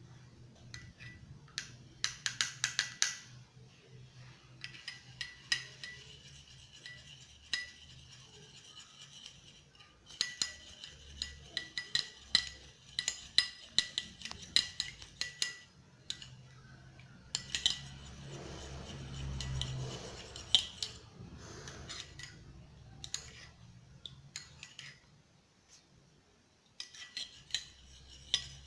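Spoon clinking and scraping against a sieve in bursts of quick ringing taps, as turnip and garlic are pressed to squeeze out their juice.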